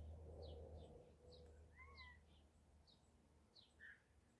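Near silence, with faint short high bird chirps repeating about once or twice a second over a low steady hum.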